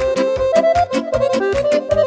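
Romanian folk party band playing an instrumental break of a hora or sârbă: an accordion melody over a fast, steady beat of alternating bass notes and chords.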